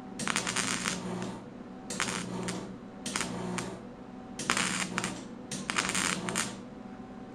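Wire-feed welder laying short stitch welds on thin sheet metal: five bursts of crackling arc, each half a second to a second long, with brief pauses between trigger pulls. The welds go over a spot where the metal had burned through.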